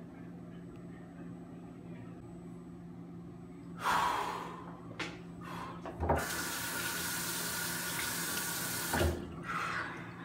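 Restroom sink tap running for about three seconds while he washes his face, starting about six seconds in and stopping about nine seconds in, each with a knock. A short rush of noise comes about four seconds in, and a steady low hum runs underneath.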